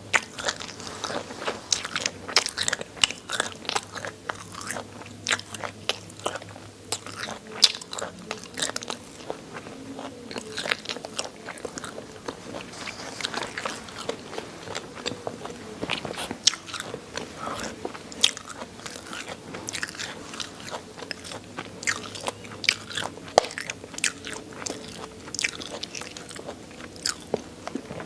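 Close-miked chewing of chicken neck, the small bones crunching and cracking in a dense, irregular stream of sharp crackles, with mouth sounds in between.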